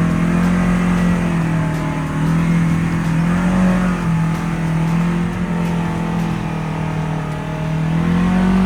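ATV engine running steadily as it climbs a trail, its pitch rising a little with the throttle about halfway through and again near the end.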